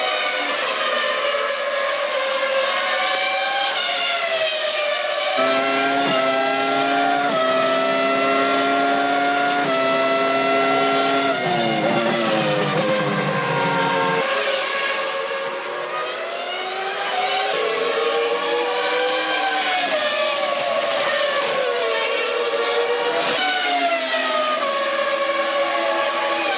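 1998 Formula One cars' 3-litre V10 engines at racing speed: high-pitched engine notes rising and falling through gear changes. Midway, one engine's note steps up through quick upshifts, then falls steeply as it downshifts.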